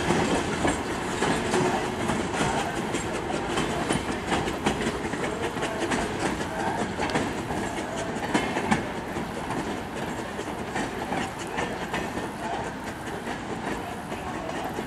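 Wheels of open-sided railroad passenger coaches rolling over the track, clicking over the rail joints in an irregular clickety-clack over a steady rumble, slowly fading as the train moves away.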